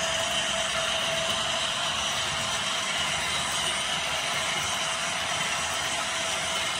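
HO scale model freight train running on the layout track, giving a steady mechanical hum and rolling noise with a constant whine.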